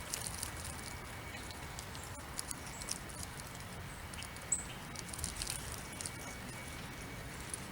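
Soft rain falling lightly: many scattered drop ticks over a steady hiss, with one short high bird chirp about four and a half seconds in.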